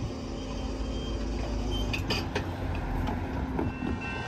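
Hi-rail truck running along the rails with a low, steady rumble, with a short cluster of sharp metallic clicks about two seconds in. Steady ringing tones, like a crossing bell, start near the end.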